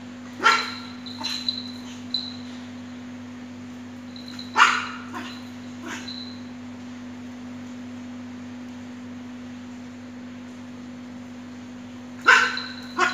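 Small poodle barking in short, scattered outbursts: a few barks about half a second in, one loud bark a little before five seconds, and two more near the end. These are angry barks from a dog disturbed while eating.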